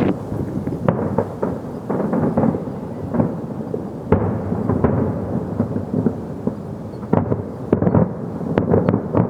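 Fireworks going off in a dense barrage: a continuous low rumble of booms with many sharp bangs and crackles layered on top, coming thickest in a cluster near the end.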